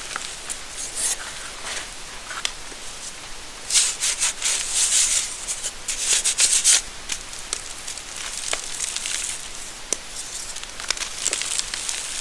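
Dried gym chalk reforms (chalk set back into lumps after being wet) crunching and crumbling as hands squeeze and crush them into powder, with loose powder rubbing and sifting between the fingers. The crunching is densest and loudest about four to seven seconds in.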